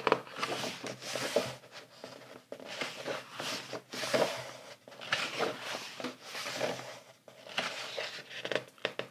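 Pages of a large hardcover art book being turned and handled: a series of paper rustles and swishes, one after another.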